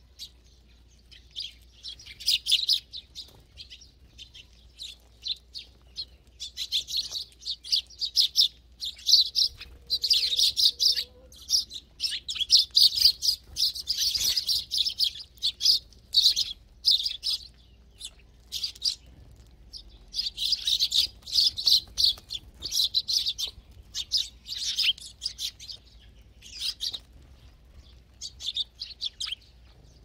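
A feeding flock of Eurasian tree sparrows chirping, in busy bursts of many overlapping high chirps with short lulls between them.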